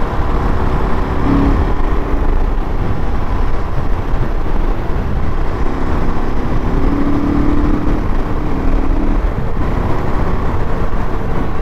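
Wind rushing over a helmet-mounted microphone on a moving motorcycle, with the steady note of the KTM RC390's single-cylinder engine underneath, a little stronger for a couple of seconds past the middle.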